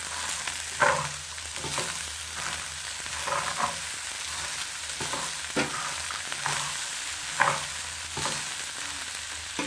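Caterpillars and onions sizzling as they fry in hot oil in a pan, with a utensil knocking and scraping against the pan every second or two as they are stirred.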